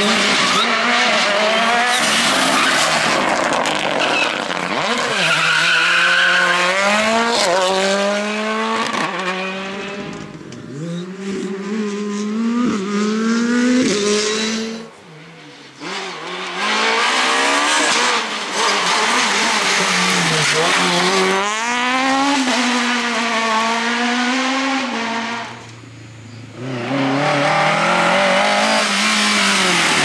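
Rally cars at full attack, one after another: a Ford Fiesta rally car, then a Suzuki Swift rally car. Each engine revs hard, its pitch climbing and dropping many times through gear changes and lifts. The sound falls away briefly about halfway through and again near the end, between cars.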